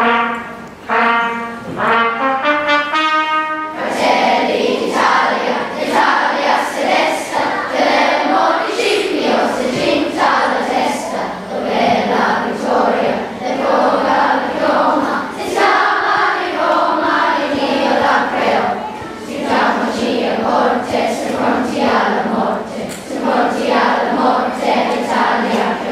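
Large children's choir singing. The first few seconds are a short run of clear, separate notes stepping in pitch before the full choir comes in.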